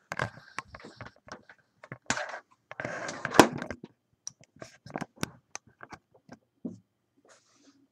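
Handling noise as the recording camera is picked up and carried to a new spot: irregular clicks, knocks and rustling, with clothing brushing over the microphone. The loudest is a sharp knock about three and a half seconds in.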